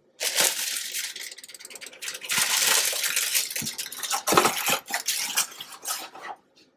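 Dry boxed cake mix poured from its bag into a glass mixing bowl: a rustling, hissing pour with the bag crinkling, and a few sharp knocks about four seconds in.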